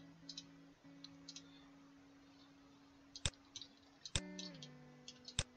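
Computer mouse and keyboard clicks during viewport navigation. A few faint clicks come first, then a quick run of sharper clicks in the second half, three of them loud.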